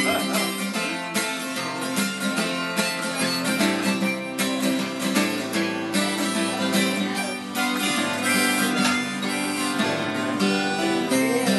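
Acoustic guitar strummed steadily through an instrumental passage of a song, with no singing.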